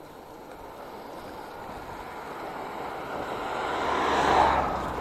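A Chevrolet Niva SUV approaching and driving past, its engine and tyre noise swelling steadily to a peak about four seconds in, then easing off.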